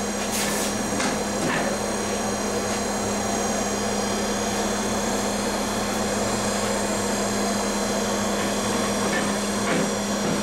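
Steady drone of a workshop fan or blower running, with a constant low hum. There is a brief rustle near the start.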